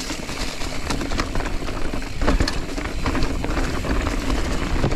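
Mountain bike riding fast down a rough dirt and rock trail: tyres rumbling over the ground and the bike clattering over bumps, with wind buffeting the microphone.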